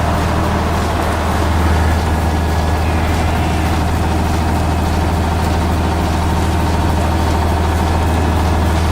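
A heavy engine running steadily at idle, a constant low hum that does not change.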